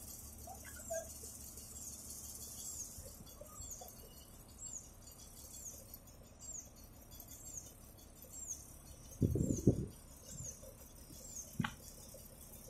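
A mobile crane's engine running low and steady while the hook is lowered, with a short, high falling chirp repeating evenly about every two-thirds of a second. About nine seconds in, a brief rattling clatter, the loudest sound, is followed by a single click.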